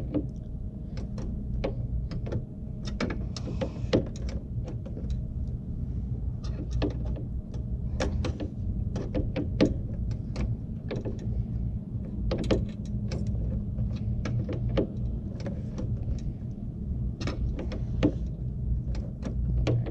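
Irregular clicks and ticks from a hand tool turning a headlight's aiming adjuster, over a steady low hum.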